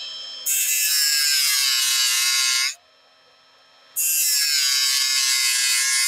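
CBN grinding wheel of a Tiger's Teeth multi-tool blade sharpener grinding new teeth into a steel oscillating multi-tool blade: two plunges, each about two to three seconds of loud, high-pitched metal grinding. The whine dips in pitch and then recovers during each plunge, with about a second of near quiet between them.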